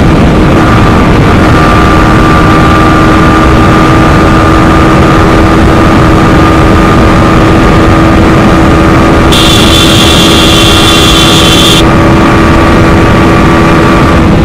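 Yamaha R15 V4's single-cylinder engine held at a steady high pitch near flat out at its top speed of about 140 km/h, mixed with heavy wind rush on the bike-mounted microphone. A high hiss joins for a couple of seconds past the middle.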